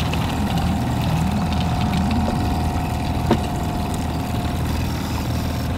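9.9 hp kicker outboard running steadily at trolling speed, with one short sharp click about three seconds in.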